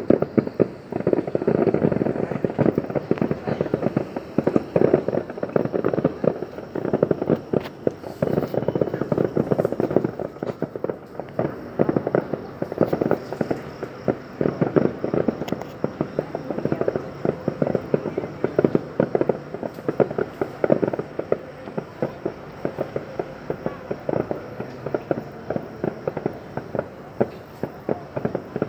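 Fireworks display: a continuous, rapid crackle of many bangs and pops, growing denser and louder in waves.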